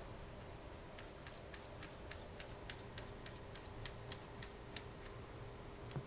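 Somali cat pawing inside a covered plastic litter box: a quick, irregular run of light, sharp clicks for about four seconds, then one more near the end. It is the "air scratching" the breed is known for, scraping at the box rather than burying its waste in the litter.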